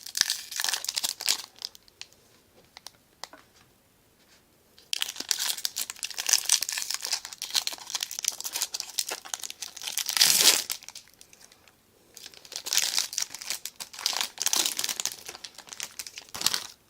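Trading card pack wrapper crinkling and tearing as the pack is opened by hand, in three spells of crackling with short pauses between.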